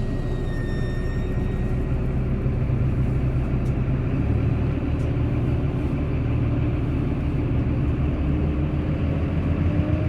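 Bus engine running with a steady low rumble; near the end its note begins to rise as it revs up.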